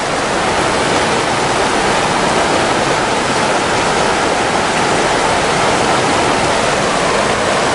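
Fast-flowing river current rushing over rocks: a steady, loud rush of water.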